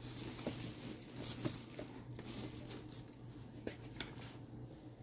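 Faint scraping and handling of kitchen tongs moving cooked pork pieces about in a Tupperware MicroPro Grill dish, with a few light clicks scattered through.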